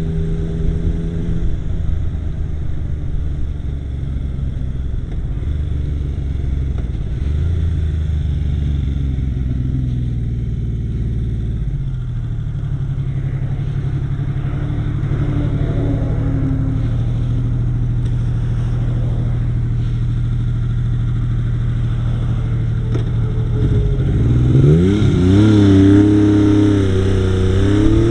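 Yamaha XS850 three-cylinder motorcycle engine running steadily, its pitch stepping down twice, then revving up and down several times near the end. The owner reports that it runs fine at idle but misfires at times while riding.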